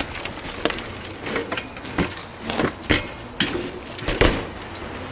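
BMX bike knocking and clattering on hard ground during a small trick: a series of sharp knocks about half a second apart, the heaviest thump about four seconds in.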